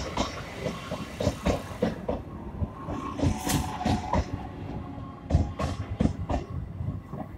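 Eastern Railway EMU local train passing close by, its wheels clacking over rail joints in an uneven run of sharp knocks, with a faint steady whine in the middle.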